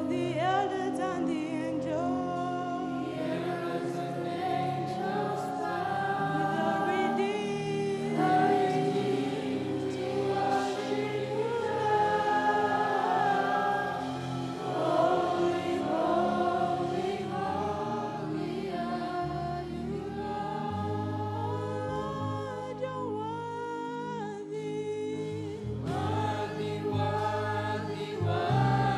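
Gospel worship music: a choir of voices singing together over instrumental accompaniment with a steady bass line.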